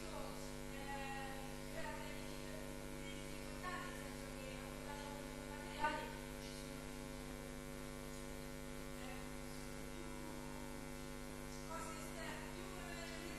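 Steady electrical mains hum on the sound system, with a faint voice speaking away from the microphone now and then and a short louder sound about six seconds in.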